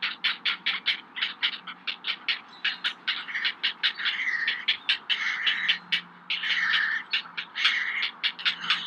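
Great blue heron chicks calling at the nest: a rapid run of harsh clicking notes, about five a second, broken by two longer squawks about four and six and a half seconds in.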